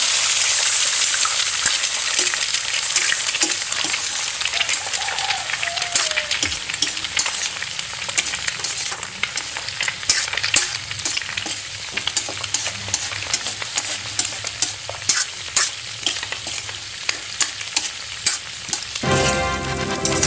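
Beaten egg sizzling as it is poured into hot oil in a metal wok of sautéed bitter gourd, loudest in the first couple of seconds. Then a spatula scrapes and knocks against the wok as the egg is stirred through, giving many sharp clicks over a steady sizzle. Music comes in near the end.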